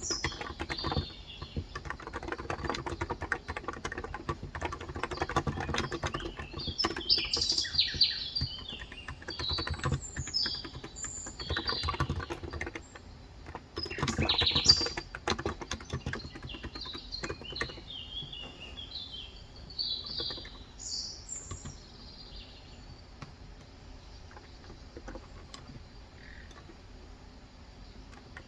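Steady typing on a Cox Endeavour electro-capacitive keyboard with 35 g switches, a dense run of soft keystrokes that thins out near the end. Birds chirp over the typing.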